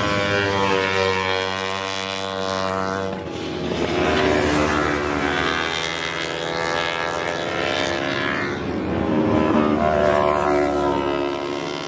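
Several racing sport motorcycles running at high revs, their engine notes overlapping and rising and falling in pitch and loudness as the bikes pass close by, about three swells in all.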